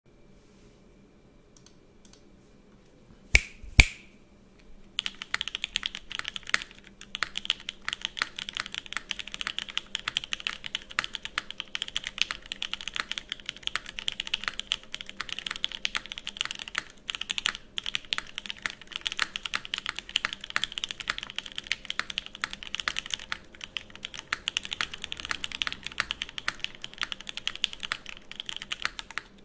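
Charon custom mechanical keyboard with Banana Split linear switches on an FR4 plate, no foam, being typed on fast and continuously. The typing starts about five seconds in, after two sharp, loud clacks a little earlier. Its overall sound is average to the owner's ear.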